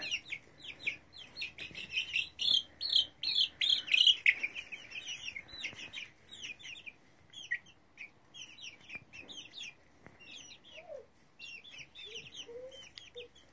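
A group of young chicks peeping: many short, high calls that fall in pitch, crowded together in the first few seconds and thinning out after that.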